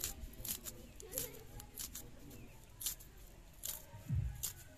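Dry garlic skins crackling and scraping as cloves are peeled and trimmed against an upright boti blade, in short irregular crisp ticks. A low thump near the end.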